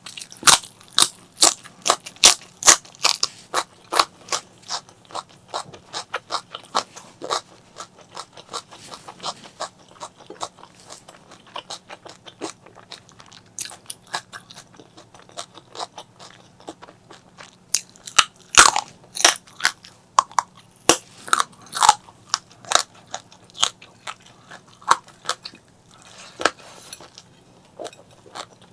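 Close-miked crunching and chewing of crispy fried fish: rapid crackly bites in bursts, thickest in the first few seconds and again a little past the middle, with slower chewing between.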